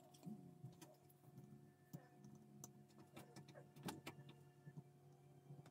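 Near silence: faint steady room hum with a few soft clicks.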